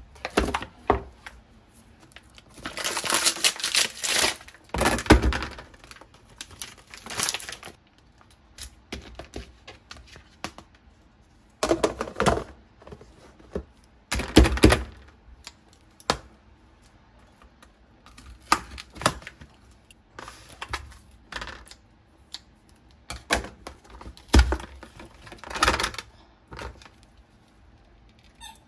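Plastic food packaging and a plastic storage container being handled on a countertop: a stretch of crinkling plastic a few seconds in, then scattered knocks and clatters of plastic, the sharpest about five, fifteen and twenty-five seconds in.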